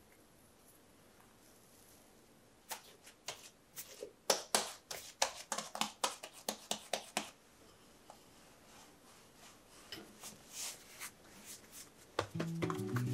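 Hands pinching shut and rounding a ball of mugwort bread dough around a bean-paste filling on a granite board: a quick run of sharp clicks and taps, then softer rubbing as the ball is shaped. Background music starts near the end.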